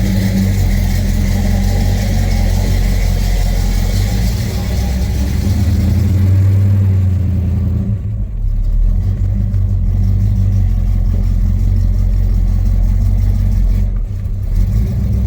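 Freshly rebuilt Pontiac 400 V8 of a 1970 GTO running, a low, steady exhaust note that shifts a little about halfway through.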